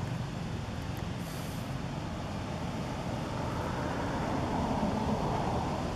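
Motor vehicle engine noise, steady at first, then swelling from about three seconds in and easing off near the end, as a vehicle passing by.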